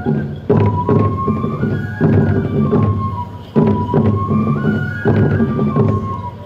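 Japanese folk festival music for a tiger dance: a flute plays a short stepped melody that repeats over and over, over heavy drum strokes about every second and a half.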